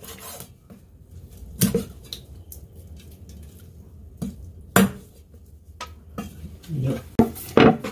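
Kitchen knife chopping through a raw squab on a wooden cutting board, with clinks from a stainless steel tray as the cut feet are dropped in. It comes as a handful of separate sharp knocks, the loudest about the middle and near the end.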